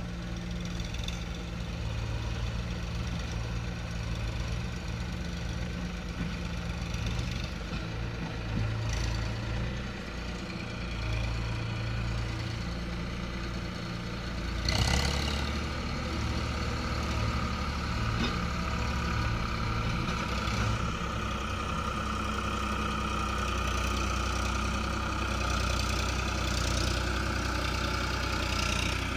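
Diesel engines of a backhoe loader and tractors running steadily near idle. About halfway through there is one sharp clank, after which the engine note is stronger and a higher whine runs on to the end.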